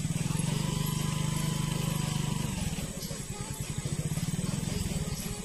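An engine running with a fast, even low putter. Its note sags for a couple of seconds past the middle, then picks up again.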